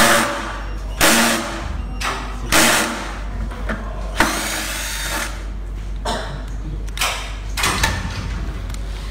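Cordless drill-driver run in several short bursts, with a longer run about four seconds in, as it spins the casing screws of a KingSong KS-16 electric unicycle.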